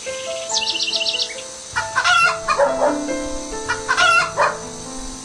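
A rooster crowing twice, about 2 s and 4 s in, over background music with held notes, with a quick trill of high bird chirps near the start.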